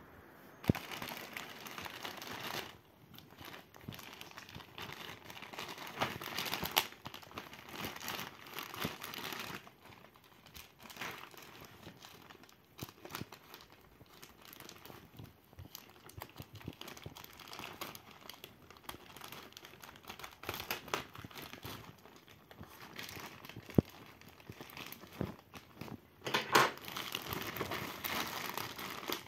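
A thin plastic courier mailer bag crinkling and rustling as it is handled, snipped with scissors and pulled open, with occasional sharp clicks; the rustling is loudest and densest near the end.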